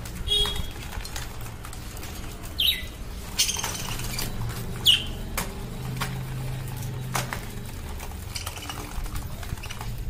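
Pet budgerigars giving a few short high chirps, two of them sweeping in pitch, with scattered sharp clicks, over a low steady hum.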